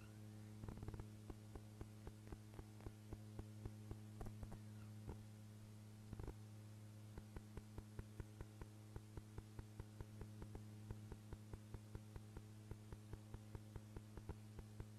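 Faint steady electrical hum with frequent small clicks and crackles: the background noise of a VHS tape playing back with no soundtrack.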